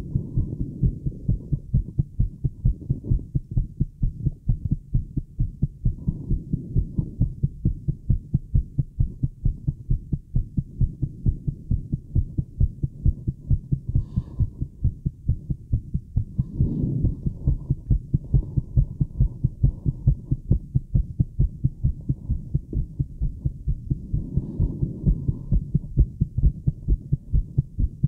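A woman's fast heartbeat heard through a Littmann acoustic stethoscope on her chest, picked up by a microphone on the tubing: a steady, rapid run of low, dull thuds that never breaks.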